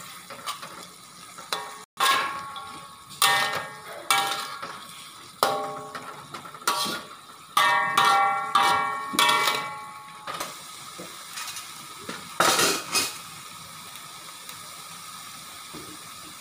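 A metal spatula knocks and scrapes against a steel wok while pumpkin leaves and white fungus are stir-fried, with sizzling underneath. The clanks ring briefly, come about a dozen times in irregular bunches, and stop a few seconds before the end, leaving only a faint steady sizzle.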